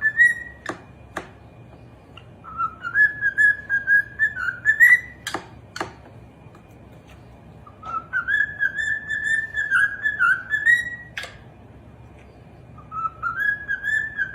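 A pet bird whistling the same short warbling phrase three times, each about three seconds long and ending on a rising note, with pauses between. A few sharp clicks fall in the gaps.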